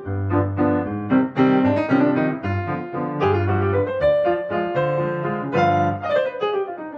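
Background music: a piano-led instrumental with quick successive notes over a held bass line.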